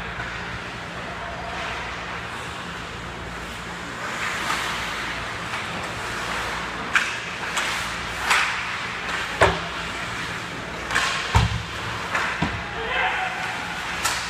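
Ice hockey play around the goal: skates scraping the ice and a series of sharp knocks of sticks and puck against pads and each other, coming thicker in the second half as players crowd the crease.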